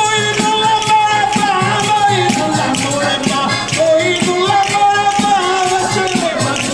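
Live Southern Italian tammorra folk music played by a band: a held, sung melody over a steady, jingling frame-drum beat.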